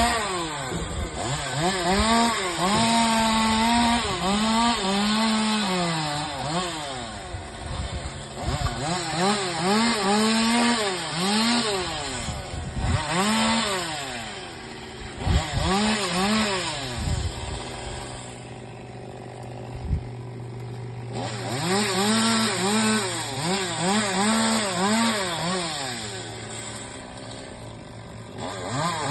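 Chainsaw engine revving up and dropping back again and again as it cuts through branches, with a quieter idling spell about two-thirds of the way through. A steady low hum runs underneath from about a quarter of the way in.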